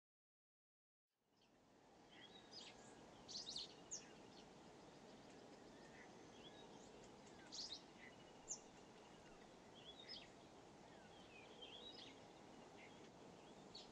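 Faint woodland ambience: scattered short bird chirps and calls over a low steady hiss, starting after about a second of silence.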